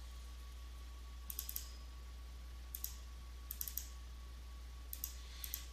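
Computer keyboard keystrokes and mouse clicks in four short bursts of two to four clicks each, over a steady low electrical hum.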